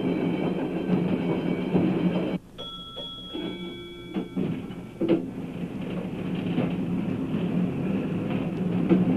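Chicago, Aurora and Elgin electric interurban cars running on the rails with a steady rumble and hum. About two and a half seconds in, the sound cuts to a grade-crossing bell ringing for about two seconds. The train running sound comes back at about five seconds.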